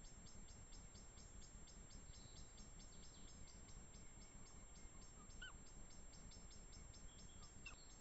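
Faint night-forest sound: an insect chirping steadily in a high pitch, about four chirps a second, with two short faint calls from a tawny owl, one a little past the middle and one near the end.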